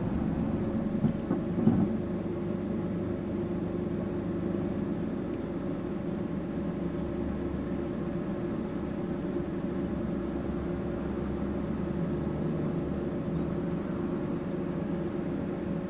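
Vehicle engine idling steadily while stopped: a low rumble with a steady hum over it, and a couple of brief knocks about a second or two in.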